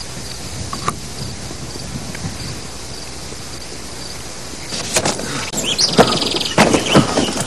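Steady night chorus of crickets chirping at an even pulse. About five seconds in it gives way to irregular crunching footsteps through brush and undergrowth, with a short bird chirp and a fast high trill.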